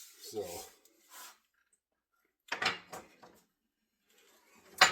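Wood and metal handling knocks as an axe and its new handle are moved about on a workbench: a short rattling scrape about halfway through and a single sharp knock near the end.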